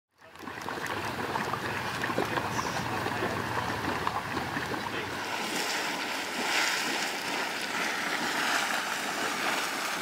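Small geyser boiling and splashing in its crater: a steady churning, sputtering rush of hot water, fading in at the start.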